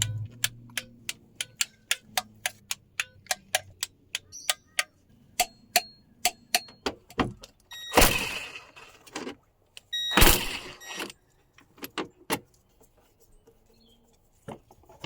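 A run of sharp metallic clicks, about three to four a second, then two short loud hissing or rushing bursts about two seconds apart, followed by a few scattered clicks.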